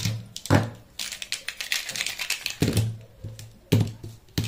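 Plastic marker pens set down one after another on a paper-covered table: a quick run of sharp clicks and light knocks, the loudest a little after the start, near the middle and just before the end.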